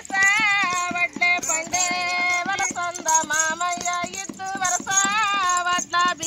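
A woman singing a Telugu folk song in a high, ornamented voice with long held, wavering notes, over a quick, even beat of sharp percussion clicks.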